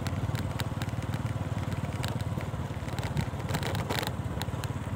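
Motorcycle engine running steadily at low speed, with scattered knocks and rattles as the bike rides over a rutted dirt track.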